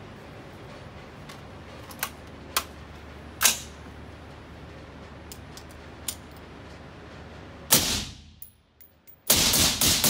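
Suppressed AR-style 5.56 rifle with a SilencerCo Hybrid suppressor fired indoors: a single shot about eight seconds in, then a rapid string of shots a second and a half later. A few sharp clicks and knocks come earlier.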